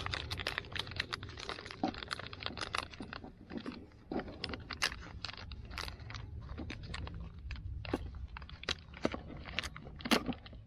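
Close handling of fishing tackle and its plastic packaging while a Ned rig is being put together: irregular crinkling and clicking, with a louder cluster of clicks near the end.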